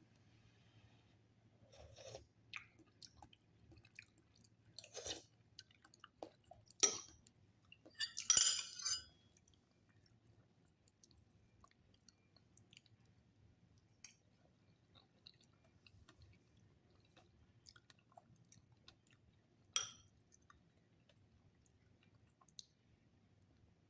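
A person eating: quiet chewing with scattered sharp clicks of utensils on dishes, the loudest about seven and twenty seconds in, and a noisy burst lasting about a second around eight seconds in.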